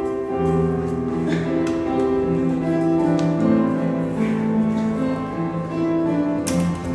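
Slow instrumental hymn music: piano with long sustained string-like chords.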